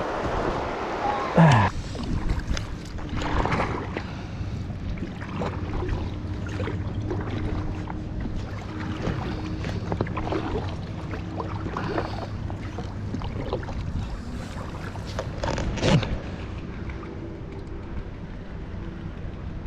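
Kayak paddling on a river: paddle strokes splashing in the water at irregular intervals over running-water noise and a low steady hum. Two louder knocks or splashes stand out, one about a second and a half in and one near the end.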